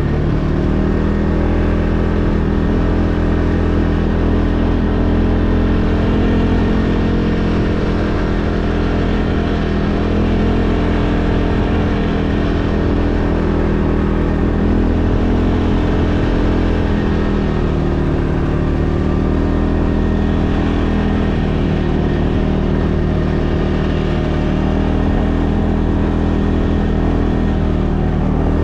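An engine running steadily with a low, even drone, its pitch shifting slightly now and then.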